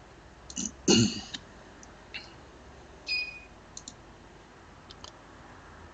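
Computer mouse clicks, a handful of single clicks spread a second or so apart, with a brief voice sound about a second in.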